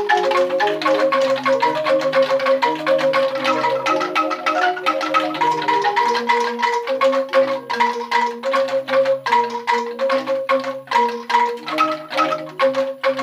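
A set of new bamboo angklung played on their own, the shaken tubes rattling out fast repeated notes: a melody in the upper notes over a lower-pitched part.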